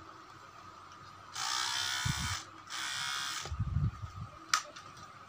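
Small electric motor of a hair clipper converted into a cordless engraving drill, switched on and running briefly twice, about a second each time, with a high whirring sound. Handling knocks and sharp clicks come between the runs.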